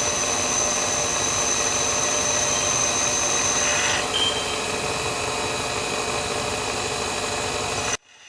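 Bench grinder running while an HSS lathe tool bit is ground against the wheel: a steady grinding noise with a high, even tone that drops out about halfway. The sound cuts off abruptly near the end.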